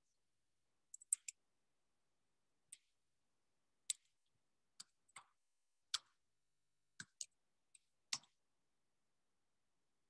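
Computer keyboard keys tapped while a web address is typed: about a dozen short, sharp, irregularly spaced clicks over several seconds.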